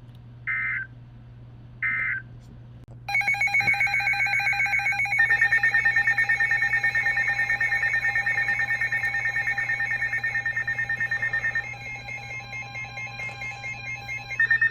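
Two short electronic data bursts, the end of a weather-radio SAME end-of-message signal, then a long electronic alert tone. The alert tone is built of several pitches, pulses rapidly and steps to a new pitch twice along the way.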